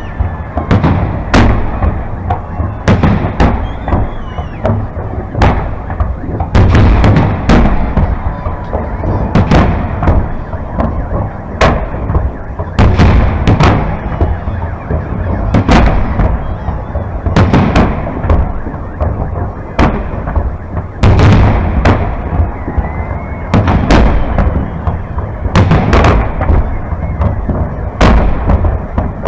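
Fireworks display: aerial shells bursting in quick succession, loud bangs about every second, irregularly spaced, over a continuous low rumble of further explosions.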